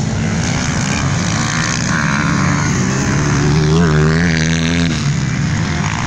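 Dirt-bike engines running hard around a race track. About halfway through, one engine's note wavers up and down as its throttle is worked, then settles.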